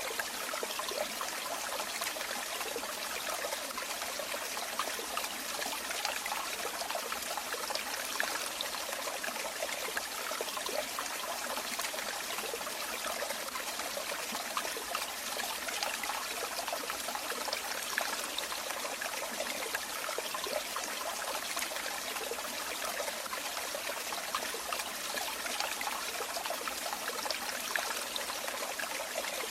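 Running water trickling and splashing steadily, like a small stream or a pour of falling water.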